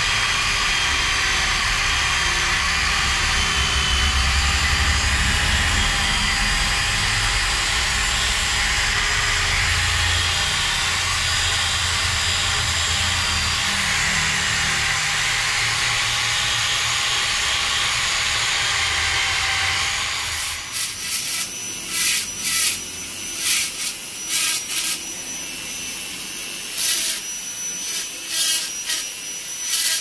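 Handheld corded rotary tool running steadily with a small bit grinding into jackfruit-root wood. About two-thirds of the way in the sound changes to short, repeated high-pitched bursts of grinding.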